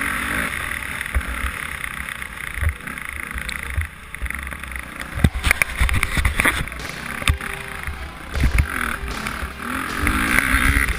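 Dirt bike engine running under way on a rough trail, mixed with wind noise on the onboard camera, with several sharp knocks about halfway through.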